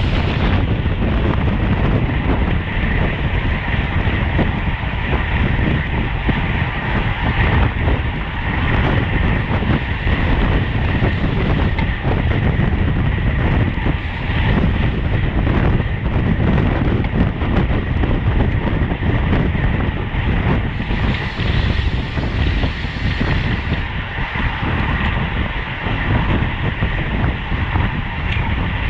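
Wind buffeting the camera microphone of a road bike riding at race speed: a loud, steady rush, with a faint high tone held underneath.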